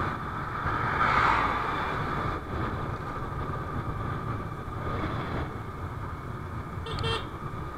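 Steady wind and road noise from a moving Yamaha Ray scooter, as picked up by a helmet-mounted camera, with a short high-pitched sound near the end.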